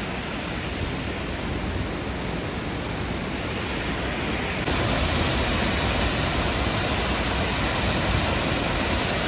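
Steady rush of a large waterfall, which turns abruptly louder and brighter a little before halfway through and then holds steady.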